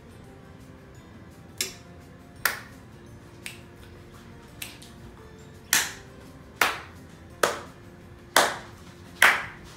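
Finger snaps in a steady rhythm, about one a second, starting soft and turning sharp and loud about halfway through, over faint background music.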